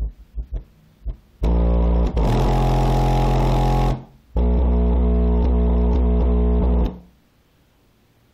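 Bass-heavy music played loud through a rebuilt JL Audio W7 subwoofer: a few short bass hits, then two long held bass notes with a distorted edge, cutting off about seven seconds in.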